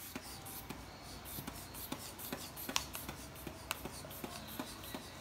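Hands working the rubber inflation bulb and valve of an aneroid sphygmomanometer: faint, irregular small clicks and rubbing over a low hum.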